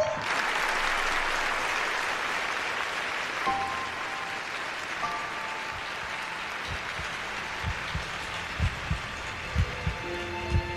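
A large audience applauding, the clapping starting strong and slowly thinning out. Soft musical notes come in a few seconds in, and near the end low thumps sound in pairs about once a second.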